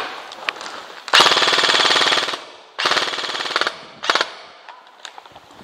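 Airsoft electric gun firing on full auto: a burst of about a second, a shorter burst a moment later, then a brief third burst.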